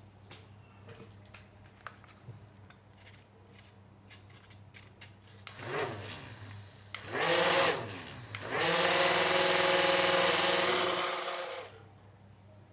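A few light clicks, then a small electric motor with a propeller revving up and down twice in short bursts. It then runs steady at high speed for about three seconds before winding down.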